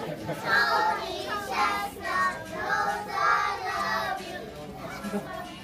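A group of young children singing an action song together, loudest for about the first four seconds and then quieter.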